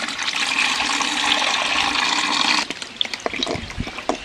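Water running and splashing as brown rice is washed, a steady rush that stops about two and a half seconds in, followed by small splashes and clicks.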